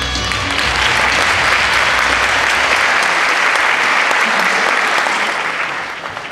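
Audience applauding, building about half a second in, holding steady and fading near the end. The last low notes of the dance music die away underneath during the first couple of seconds.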